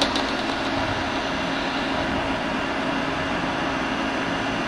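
YCM Supermax Max-1 Rebel CNC vertical machining center running its demo program in the air, with nothing being cut: a steady machine hum with a faint high whine.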